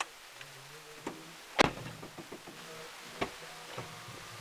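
Car door slammed shut about a second and a half in, heard from inside the car, followed by a second, lighter thump about three seconds in.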